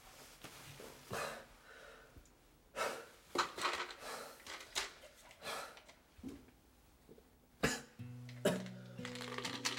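A man coughing and breathing hard in a series of short fits. Near the end, soft acoustic guitar music begins.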